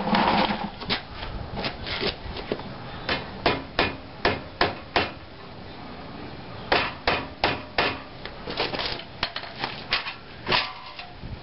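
Hammer blows driving a wheel hub bearing assembly into the steering knuckle: sharp strikes in quick runs of four or five, with a short pause midway, until the hub seats flush.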